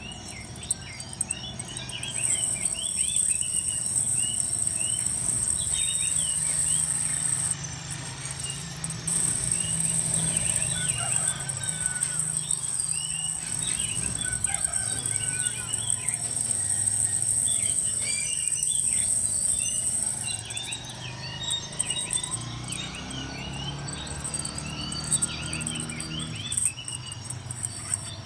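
Insects shrilling in a steady high-pitched drone that breaks off briefly now and then, with birds chirping many short notes over it and a low steady hum underneath.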